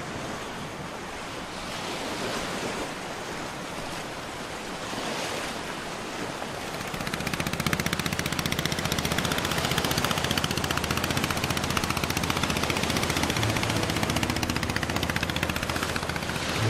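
Waves washing on a shore, a steady hiss of surf. About seven seconds in, the fast, even putter of a small fishing boat's engine comes in over it.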